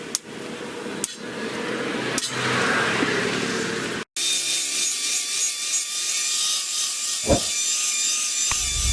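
Metalworking tools on steel. First comes a harsh scraping, rasping noise with a few sharp clicks. After an abrupt cut about four seconds in, a power tool runs with a steady whine.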